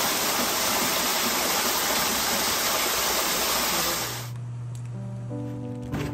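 A waterfall pouring from a rock grotto, a loud steady rush of falling water heard from just behind the curtain of water. It cuts off suddenly about four seconds in, and soft background music with held notes follows.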